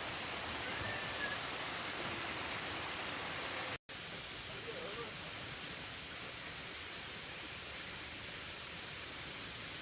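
Steady outdoor background noise with a constant high-pitched drone, broken by a brief dropout about four seconds in.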